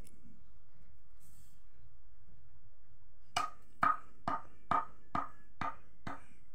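Knife blade knocking down through a pile of leaves onto a hard wooden surface: about eight sharp, ringing knocks at about two a second, starting about halfway through.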